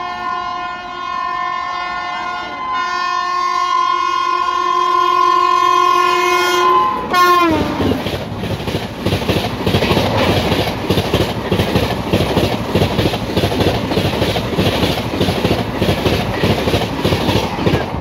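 Indian Railways express train passing at high speed. Its horn sounds one long steady chord, growing louder, then drops sharply in pitch and stops about seven seconds in as the locomotive goes by. The coaches then rush past with a rapid, rhythmic clatter of wheels over rail joints.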